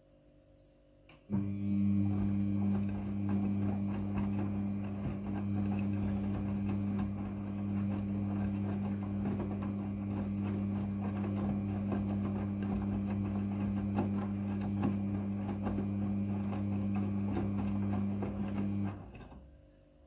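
Midea front-loading washing machine's drum motor starting about a second in and turning the drum with a steady hum, wet towels and water tumbling inside, then stopping near the end: one tumble stroke of the wash cycle.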